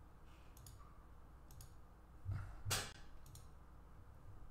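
Computer mouse clicking: a few faint clicks, then two sharper clicks about half a second apart a little past halfway, over a faint low hum of room tone.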